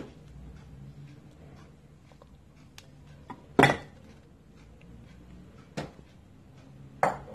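Plastic measuring cup knocking and clicking against small plastic cups and a glass bowl as a thick ice cream mixture is scooped and tapped out: a few sharp knocks, the loudest about three and a half seconds in, over a low steady hum.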